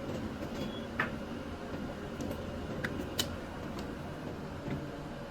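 Three sharp clicks, about one second in and near the three-second mark, over a steady low rumble.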